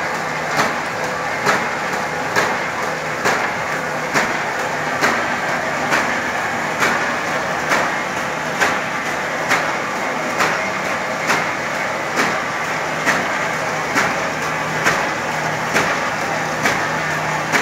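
Duplex paper roll-to-sheet cutting machine running: a steady mechanical hum with a sharp knock repeating evenly a little under once a second as the cutter chops each sheet off the roll.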